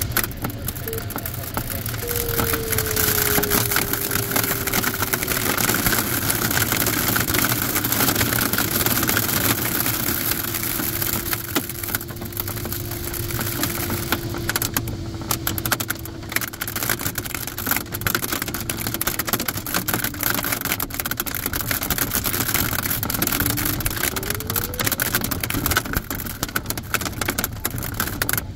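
Hail and rain rattling hard against a glider's canopy over the steady rush of airflow. The electronic variometer's tone sounds through it, sliding slowly down in pitch, then rising near the end.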